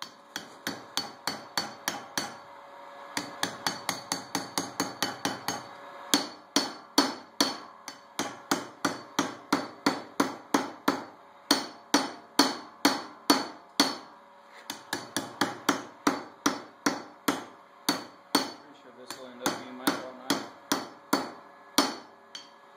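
Blacksmith's hand hammer striking hot steel, pounding out a draw knife blank to stretch the metal. The blows come in a steady rhythm of about two to three a second, with brief pauses, and each blow rings metallically.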